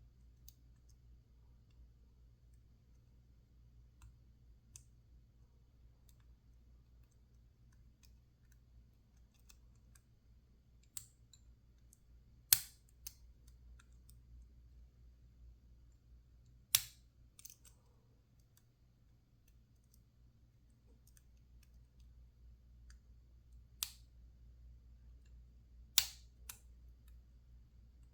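Lock pick and tension wrench working the pins of a PacLock 410 Pro padlock: scattered faint ticks and a few sharp metallic clicks, three of them louder and several seconds apart, over a faint low hum.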